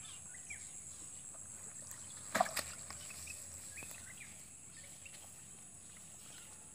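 Outdoor ambience with a steady high-pitched insect drone and a few faint short chirps, broken by one brief sharp sound about two and a half seconds in.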